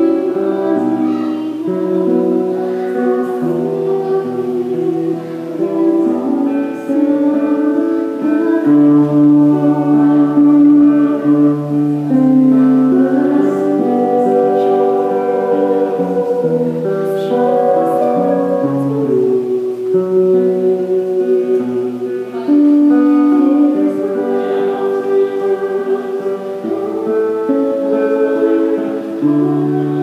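A woman singing a slow song with long held notes, accompanied by an acoustic guitar.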